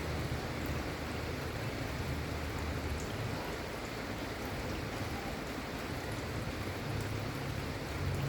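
Steady gentle rain: an even hiss of falling rain with faint drop ticks. A low hum underneath swells and fades.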